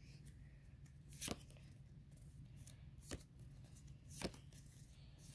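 Trading cards being handled, with three sharp card snaps about a second or two apart and a faint steady hum between them.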